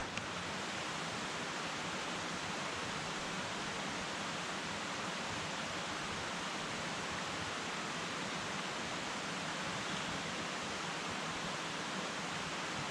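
Steady rush of a mountain stream flowing over rocks, an even, unbroken water noise.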